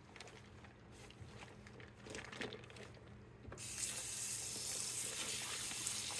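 Faint handling clicks, then a water tap turned on about halfway through, running steadily into a sink to wash the flag.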